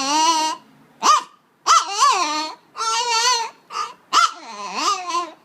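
An old long-haired Chihuahua whining in a string of about six high, wavering cries, some short yelps and some drawn out for about a second, with brief pauses between.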